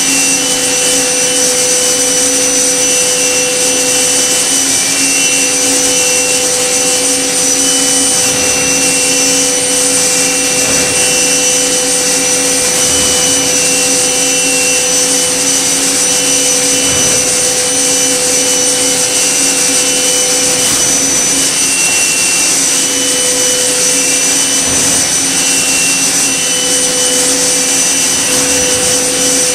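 Okuma MB-5000HII horizontal machining center running a tool against a metal block: a loud, steady spindle whine and hiss, with higher tones that come and go every few seconds as the tool moves.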